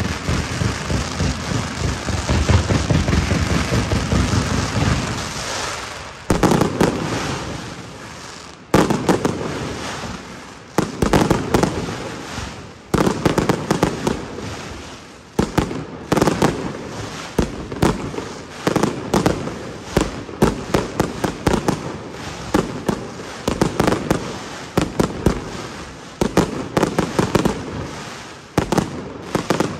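Aerial fireworks display (a Valencian castillo by Pirotecnia Tomás): dense, continuous crackling and banging for the first several seconds, then rapid volleys of sharp bangs, one every second or two, each trailing off in an echo.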